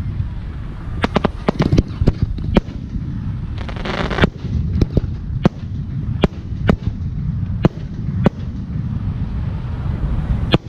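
Aerial firework shells bursting in a fireworks show: a quick run of sharp bangs in the first few seconds, a short hissing crackle about four seconds in, then single bangs about once a second.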